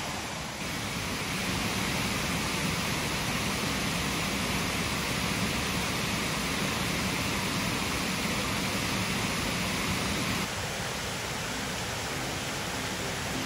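Steady rush of spring-fed water flowing in a stream, shifting slightly in tone about half a second in and again near ten seconds in. Faint music comes in near the end.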